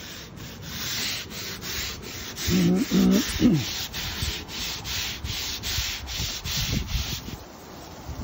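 Stiff-bristle deck brush scrubbed hard back and forth over wet Dekorator Voyage composite decking boards, about three strokes a second, stopping shortly before the end: heavy-duty scrubbing to lift grime out of the board grain. About a third of the way in, a few short low pitched sounds come over the scrubbing.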